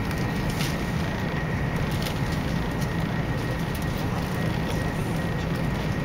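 Steady rumble and rush of a Shinkansen bullet train running at speed, heard inside the passenger cabin.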